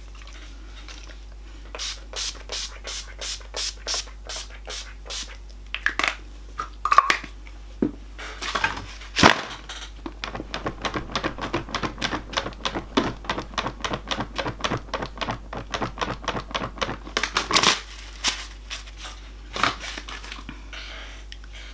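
Large folding hand fan waved back and forth in front of the face: a rhythmic run of flapping swishes, speeding up to about four or five strokes a second partway through, with a few louder snaps of the fan.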